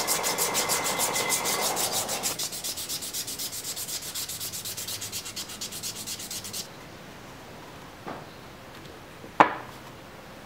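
Hand sanding of a knife's wooden handle: abrasive rubbing back and forth in quick, even strokes, about three a second, that stops about two-thirds of the way through. Near the end there is a faint knock and then a sharp, louder knock.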